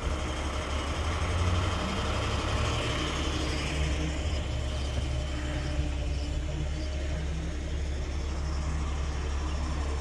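Crane truck's engine running steadily with a low hum, powering the boom's hydraulics as the boom is brought back in.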